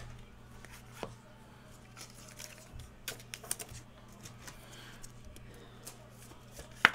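Faint scattered clicks and taps from a trading card being handled and slid into a rigid plastic top loader, over a steady low hum, with a sharper click near the end.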